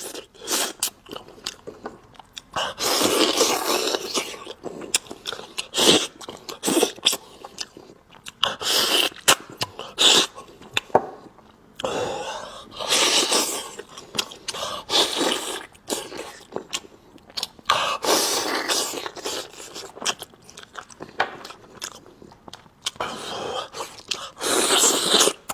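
Close-miked eating: chewing and crunching with many sharp mouth clicks and smacks, broken every few seconds by longer noisy stretches of a second or two.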